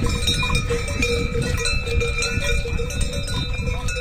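Cowbells ringing and clanging continuously, over a steady low rumble.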